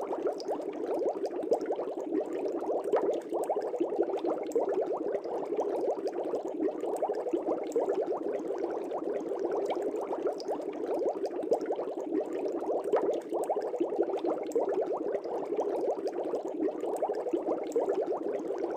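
Aquarium air bubbles bubbling steadily in the fish tank's water, a dense continuous burble of many small bubbles.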